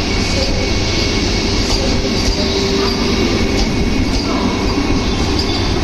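Vande Bharat Express electric train set pulling out and rolling past close by: a steady rumble of wheels on rails, with occasional sharp clicks.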